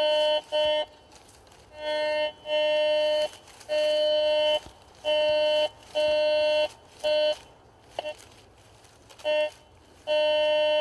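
Garrett GTI 2500 metal detector sounding its target tone over and over as the coil passes back and forth over a buried target: about eight tones of the same pitch, each up to about a second long, with the last one held near the end. The signal is from a target about 4 inches down, a round musket ball.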